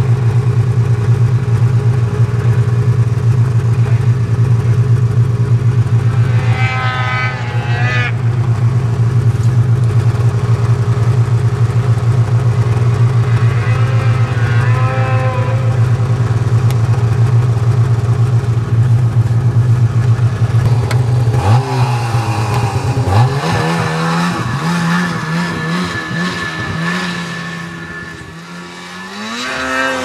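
Snowmobile engines: one runs with a steady low drone while another revs up and down briefly. About two-thirds of the way through the drone stops and engines rev up and down, rising in pitch near the end as a sled climbs the slope.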